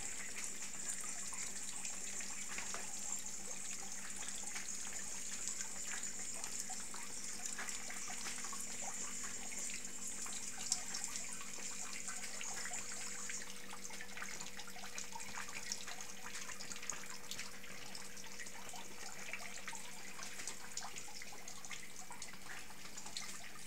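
Rainwater leaking through the ceiling, dripping and trickling steadily into plastic buckets, many small drips ticking over an even watery hiss.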